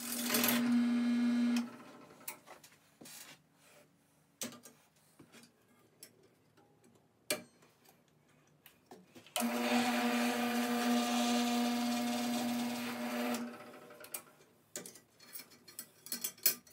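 A Craftsman 15-inch, one-horsepower drill press running while drilling a metal bar: a steady motor hum with a whine, heard briefly at first and again for about four seconds from about nine seconds in, each stretch cutting off abruptly. Between them, a few light clicks and taps.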